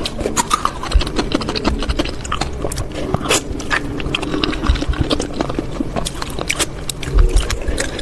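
Close-miked eating of spicy noodle soup: chewing and slurping, with many small, irregular wet clicks.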